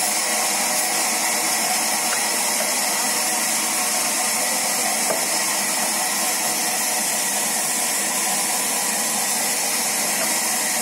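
Large band saw in a saw mill running, a steady, unchanging mechanical whir with a hum of many steady tones.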